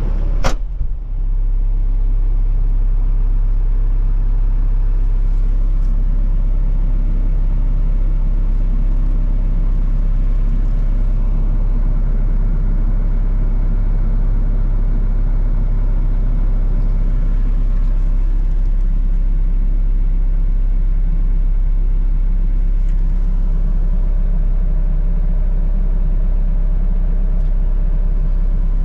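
Deere 60G mini excavator's diesel engine running at a steady idle, a deep even drone heard from inside the cab. A single sharp knock comes about half a second in.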